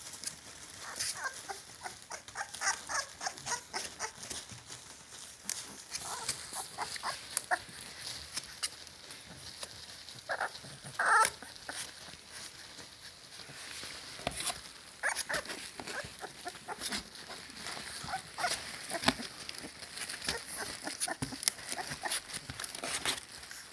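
Litter of 25-day-old puppies whining and squeaking, many short irregular cries with one louder yelp about eleven seconds in.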